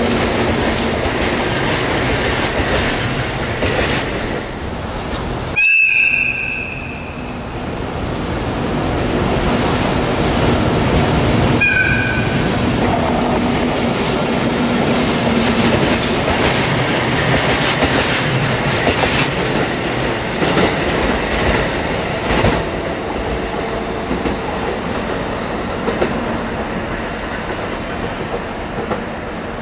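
Train rumble and wheel clatter as E131 series cars, hauled by an EF64 electric locomotive, roll past on the rails. About six seconds in a short two-tone horn sounds, and again about six seconds later. The train noise slowly fades toward the end.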